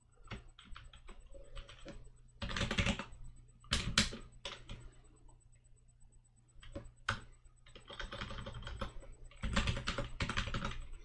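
Typing on a computer keyboard: scattered single keystrokes and several quick runs of keys, with a pause about five to six seconds in.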